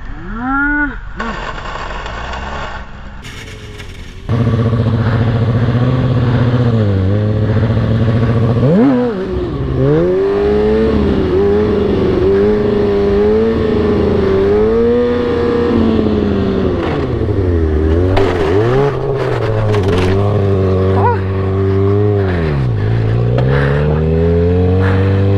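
Inline-four sport-bike engine revving, with a few short clips in the first seconds. It then runs loud and steady at high revs, pitch wavering with the throttle and dropping sharply and climbing back three times.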